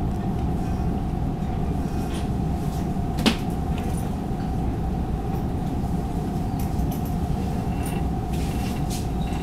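Inside an EMU600 electric multiple-unit train: a steady rumbling hum with a constant mid-pitched tone, and a single knock about three seconds in.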